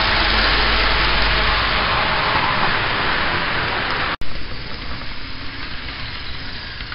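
HO scale model train running along the track, a steady rushing rumble of wheels and motor that slowly eases as the cars pass. It cuts out abruptly about four seconds in and comes back quieter.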